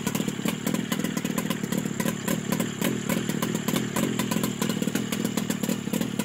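Engine running steadily at an even speed with a rapid firing beat, a test run after being started on the third try.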